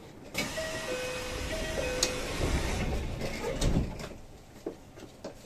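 Kintetsu 3220 series train's door chime, a two-note high-low chime sounding twice, over a rush of noise as the sliding doors close. A click follows about two seconds in, then a heavy thud near the end as the doors shut.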